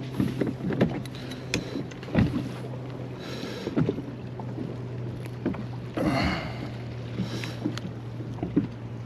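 Handling noises aboard a kayak while a small fish is dealt with after being caught: scattered knocks, taps and clicks against the hull, with a few short rustling or splashing patches, over a steady low hum.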